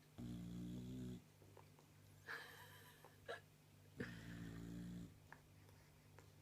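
Bulldog snoring in its sleep: two low-pitched snores about a second long each, roughly four seconds apart, with softer noisy breathing sounds between them.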